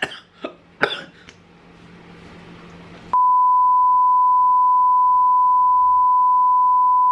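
A few short clicks, then about three seconds in a loud, steady, single-pitch beep starts and holds: the 1 kHz test tone that goes with TV colour bars.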